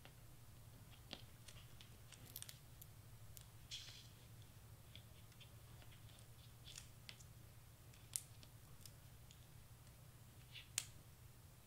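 Near silence: faint, scattered clicks and rustles of small cardstock pieces and sticky foam adhesive squares being handled and pressed on, over a low steady hum.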